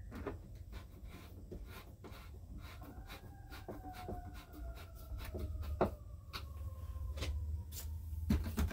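Irregular clicks from a hand turning the metal crank rod on a Heng's Vortex RV roof vent fan, over a low steady hum. From about three seconds in a faint whine slowly falls in pitch.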